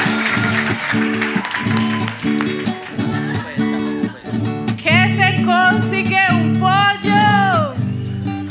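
Acoustic guitar strumming a steady, repeating trova accompaniment. From about five seconds in, a woman sings an improvised trova verse over it.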